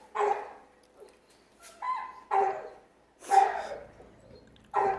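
A dog barking: four or so short, separate barks spread a second or so apart.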